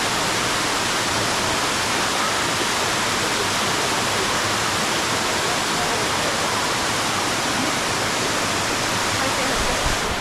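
Waterfall: steady, loud rush of falling water.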